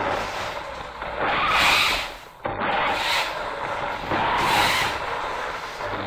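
Radio-controlled toy car (New Bright Mercedes-Benz SLR McLaren) driving over a wooden floor: electric drive motor and gears whirring with tyre noise, in surges as the throttle is worked. It cuts out briefly a little over two seconds in, then runs on.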